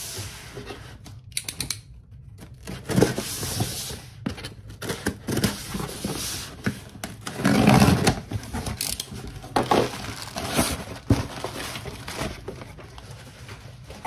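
Packing tape torn off a cardboard shipping box, with cardboard scraping and rustling as the box is slid across the table and its flaps pulled open. The loudest tearing comes about halfway through.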